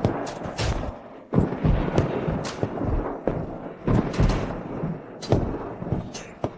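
A series of heavy thuds and impacts, roughly one or two a second, several with a whooshing sweep after them, like cinematic percussion hits in a drama soundtrack.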